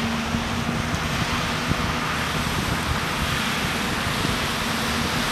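Wind buffeting the microphone over breaking surf, with the steady low hum of an articulated dump truck's diesel engine running as it tips a load of sand from its raised bed.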